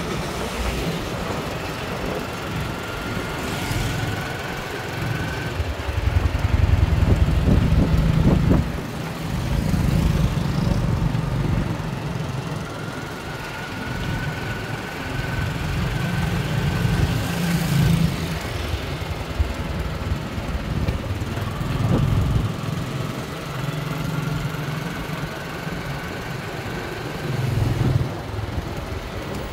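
Street traffic: motor vehicles, likely motorbikes, running and passing, a low rumble that swells and fades several times, loudest about a quarter of the way in, with faint engine whines that rise slowly in pitch.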